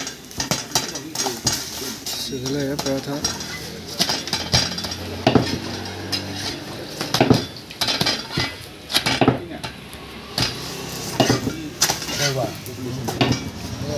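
Flat metal spatula clinking and scraping against a hot iron tawa as parathas are turned, in irregular sharp clacks over a light sizzle of frying.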